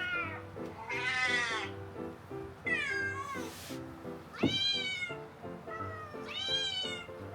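Recorded kitten meows played from a smartphone cat-sound app: about five high-pitched meows in a row, each rising and falling in pitch, with a brief hissing noise about three and a half seconds in. Background music with a steady beat runs underneath.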